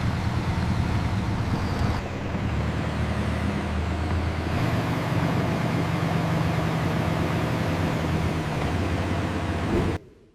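Large mining haul truck's diesel engine running with a steady low drone. It shifts slightly about two seconds in and again around four and a half seconds, then cuts off abruptly near the end.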